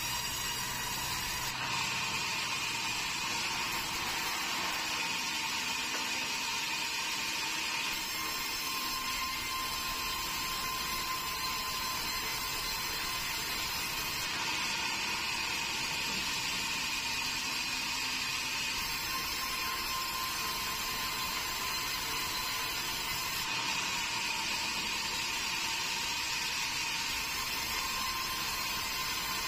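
Stationary band sawmill running and ripping a long meranti board, a steady mechanical whine whose pitch pattern shifts every five or six seconds as the board is fed through the blade.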